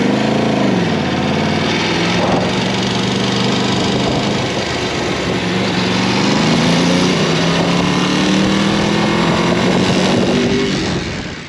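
Sport motorcycle engine heard from the rider's seat while riding, over heavy wind noise: the revs rise and fall quickly at the start, hold steady, then climb slowly through the second half as the bike pulls harder. The sound cuts off abruptly at the very end.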